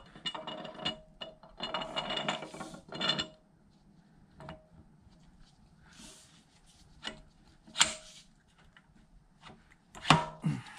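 Steel lead screw of a Bridgeport mill table being turned by hand through its longitudinal feed nut, threads scraping and rubbing with a faint metallic ring. A longer scraping stretch of about three seconds comes first, then scattered short scrapes and light clicks.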